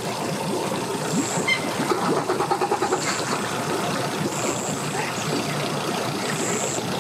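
Mercury outboard motor running as a pontoon boat pulls away from the dock, its propeller churning the water.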